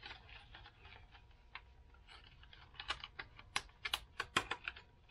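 Clear plastic blister package of jig heads being pried open by hand: faint crinkling at first, then a quick run of sharp plastic clicks and crackles in the second half.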